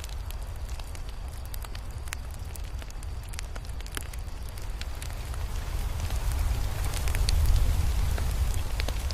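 Crackling fire: scattered sharp pops and crackles over a steady low rumble, which swells louder a little past halfway and eases off near the end.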